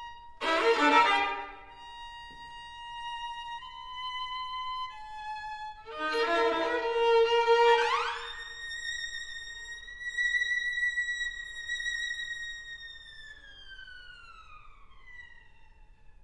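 Solo violin playing thin, high held notes, broken twice by loud, rich bowed passages, about half a second in and around six seconds in. The second rises into a long high note that is held, then slides slowly downward and fades near the end.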